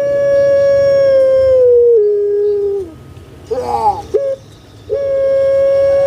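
Puter pelung dove (Streptopelia risoria) calling loudly: a long, clear drawn-out note held for nearly three seconds that steps down in pitch near its end, then a brief rolling warble and a short note, and another long held note starting about five seconds in.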